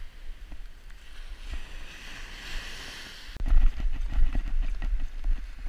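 Steady hiss of surf and wind on the beach; about three and a half seconds in, a loud low rumble with short knocks starts on the camera microphone as the camera is moved.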